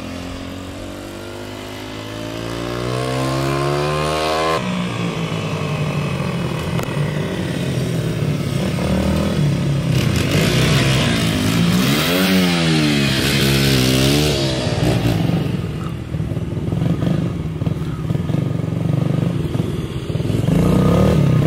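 Small dirt bike engines running and revving. The pitch climbs steadily for about four seconds and then drops suddenly, holds steady, then rises and falls again about twelve seconds in.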